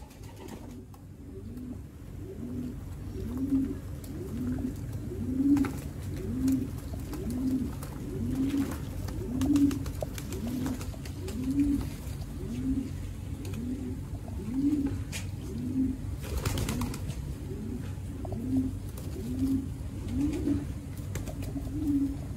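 Lahore pigeons cooing: a low coo repeated about once a second, with scattered splashes and wing flaps from the birds bathing in a shallow metal water tray.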